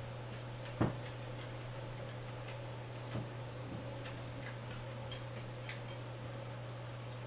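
Steady low hum with faint, irregular ticks, and a short soft knock about a second in and a smaller one about three seconds in.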